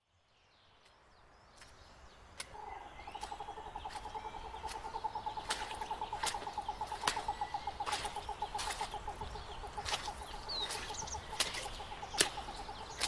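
Forest ambience sound effect fading in from silence: a fast, pulsing animal trill starts about two seconds in and runs on, with sharp cracks at irregular intervals and a few brief high bird chirps near the end, over a low rumble.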